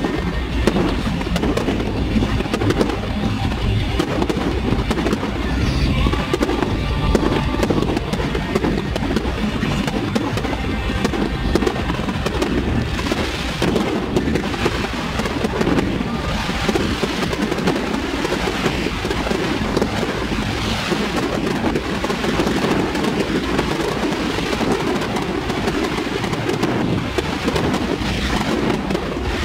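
A fireworks display bursting and crackling without a break, mixed with music.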